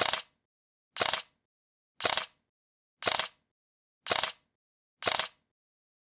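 Camera-shutter sound effect clicking six times at an even pace of about once a second, each click short with a double snap, and dead silence between.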